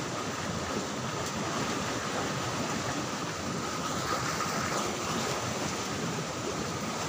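Steady rushing of a fast-flowing stream running in a stone-walled channel.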